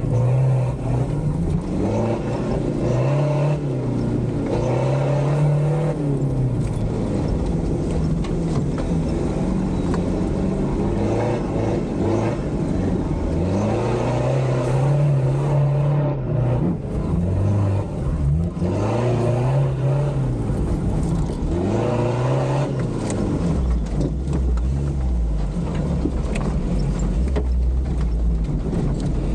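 Toyota off-road 4x4's engine revving up and dropping back again and again as it drives through rough terrain. A deeper steady rumble joins in for the last few seconds.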